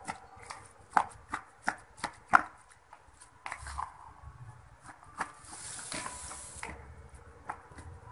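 A plastic spoon stirring corn kernels into flour batter in a plastic bowl, knocking against the bowl in a quick string of sharp clicks, then a longer scraping stir.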